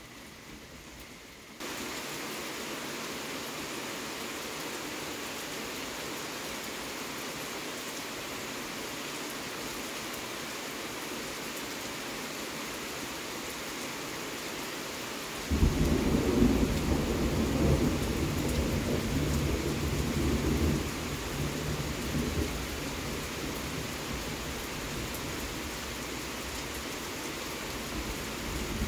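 Steady hiss of rain during a thunderstorm. About halfway through, a loud thunderclap breaks in suddenly and rumbles low for about five seconds before fading back under the rain.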